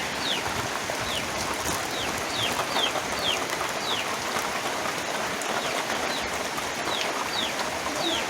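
Steady rain falling, with short, falling bird chirps repeating about once or twice a second over it.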